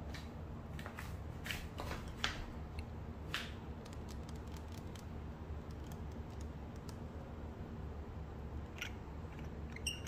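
Fingers and nails tapping and handling a plastic skincare bottle: a run of crisp clicks in the first few seconds, a few scattered clicks, and another sharp cluster near the end as a hand goes to the metal screw cap. A steady low hum runs underneath.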